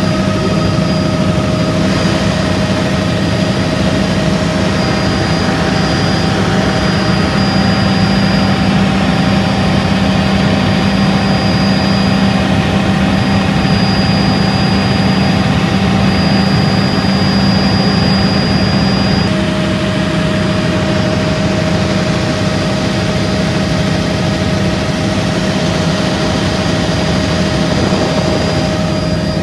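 Helicopter engine and rotors running steadily in flight, heard from inside the cabin: a constant low hum with a few steady high whining tones. The high tones shift slightly about two-thirds of the way through.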